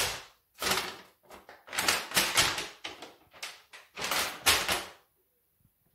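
An irregular run of wooden knocks and clatter, about a dozen over five seconds, from hands working the carved wooden figurines and panels of an old wooden cabinet. It stops about five seconds in.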